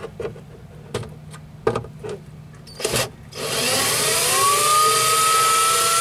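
A few handling clicks, then about three and a half seconds in an electric drill starts up. Its whine rises in pitch and then holds steady as it backs out a recessed Torx screw from the turn-signal housing cover.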